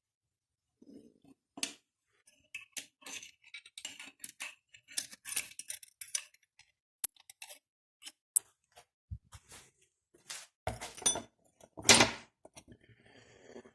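Small metal engine parts being handled by hand during a teardown of the VQ35HR V6's bottom end: irregular clinks, clicks and taps of metal on metal, with a few louder knocks near the end.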